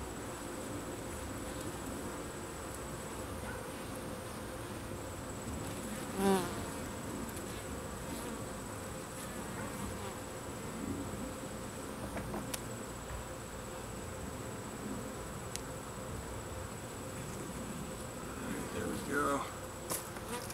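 A colony of Italian honey bees buzzing steadily around an opened top-bar hive, with a louder, briefly changing buzz as a bee passes close about six seconds in and again near the end. A few light clicks of a metal hive tool prying comb free from the hive wall.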